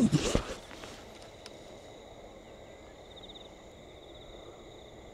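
Steady evening chorus of crickets: a high, continuous trilling with a faster pulsing stretch a little past the middle. A short, louder burst of low sounds comes right at the start.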